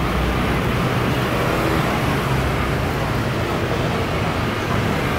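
Steady road traffic noise, a low rumble of passing vehicles.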